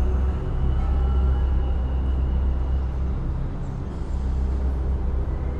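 Steady low rumble of vehicle engines and road traffic, street ambience at a bus stand. Faint held tones of the fading music die away in the first few seconds.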